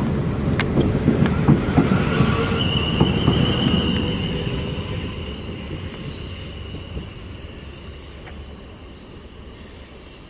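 A train rumbling away, its sound fading steadily, with a few sharp clicks in the first few seconds. A high steady whine comes in about two and a half seconds in and fades with it.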